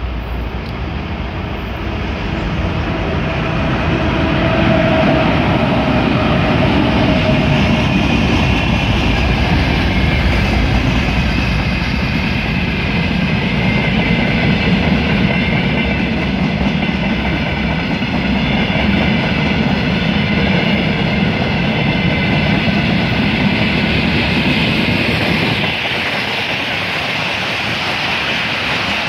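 2M62UM twin-section diesel locomotive passing with a freight train, followed by a long string of freight wagons rolling by on the rails. The sound builds over the first few seconds, stays loud and steady, and its low rumble drops off suddenly near the end.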